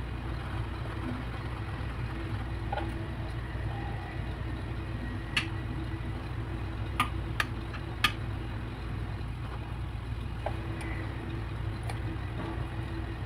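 A steady low background hum, with a few light clicks of a spoon against a glass baking dish while curd is spread over the bhallas.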